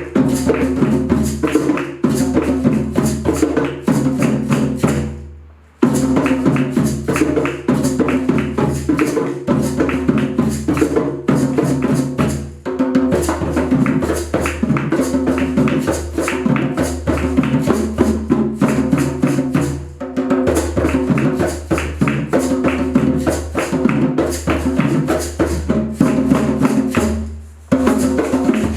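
Music with fast, dense clicking percussion over a steady bass and mid-range accompaniment. It drops out briefly about five seconds in and again near the end.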